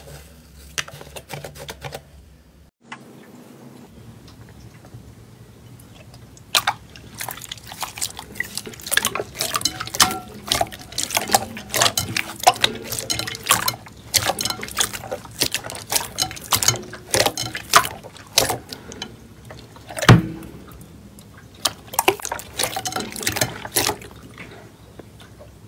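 Hands pressing and kneading slime: many wet clicks and pops in quick clusters with short pauses, the loudest pop about two-thirds of the way through.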